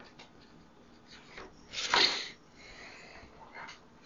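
Faint scratching strokes of a black marker on a small whiteboard, with a brief loud rustle about two seconds in as the board is handled and lifted.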